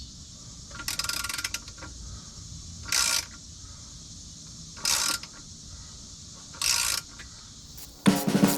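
Hand socket ratchet clicking in four short bursts about two seconds apart, as bolts are worked loose. Music with drums starts near the end.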